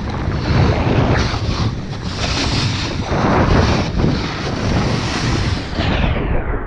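Wind buffeting the microphone in a steady rush of noise, with surges of hiss that fit a snowboard sliding fast over snow. The hiss fades near the end.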